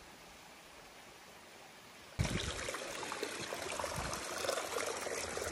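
Faint forest ambience, then about two seconds in, a small mountain stream suddenly comes up close and loud, trickling and splashing over rocks.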